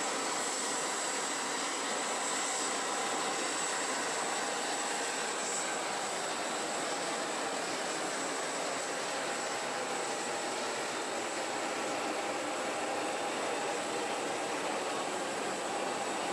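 Jet aircraft turbines running: a steady rush of noise with a thin, constant high-pitched whine over it.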